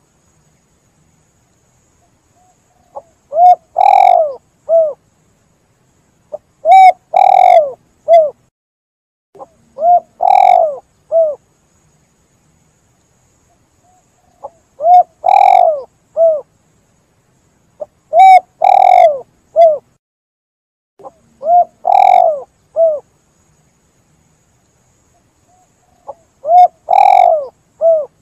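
Spotted dove cooing: seven phrases, each a short soft lead-in note, a long loud coo and a short final note, repeated every three to four seconds with silence between.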